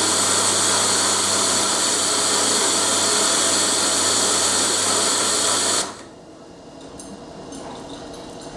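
Electric chain hoist motor running steadily under load as it lifts a heavy jet-engine midframe, with a low hum under a loud whirr; it cuts off abruptly about six seconds in.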